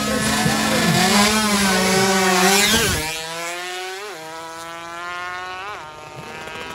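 Tuned 116 cc underbone drag motorcycle revving loudly, then accelerating away: its engine note climbs and drops sharply twice as it shifts up through the gears.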